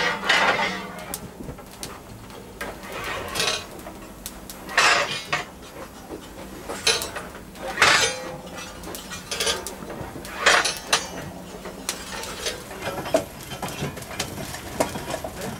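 Steel fire irons scraping and clanking against the grate and clinker of a steam locomotive's firebox during fire cleaning, in irregular strokes a second or two apart, over a steady low hum.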